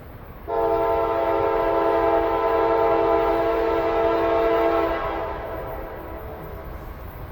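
CSX freight locomotive's air horn sounding one long, steady multi-note chord for about four and a half seconds, then cutting off with a short fading tail.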